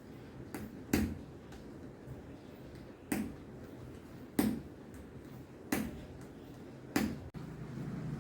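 Sharp clicks from a chiropractic adjustment being given on a patient's back: five in all, about one every second and a quarter.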